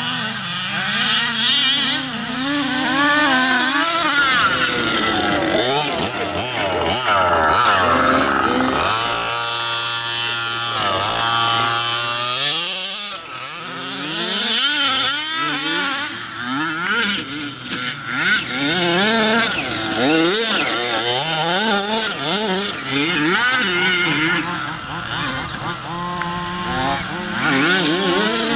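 Small two-stroke engines of gas-powered 1/5-scale RC cars (HPI Baja type), several at once, revving up and down. Their buzzing pitch keeps rising and falling, and one holds a steady high note for a few seconds near the middle.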